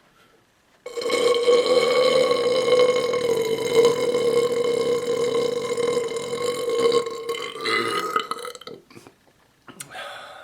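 A man's long, loud belch, held at one steady low pitch for about six and a half seconds. It starts about a second in and trails off after about eight seconds.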